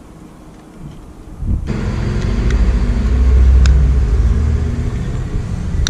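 A motor vehicle's engine running close by. It sets in abruptly about one and a half seconds in, is loudest midway, and has a few faint clicks over it.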